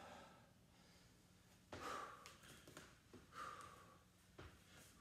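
A man breathing hard from exertion in faint, heavy exhales, about three of them, while doing bear crawls, with a few faint knocks in between.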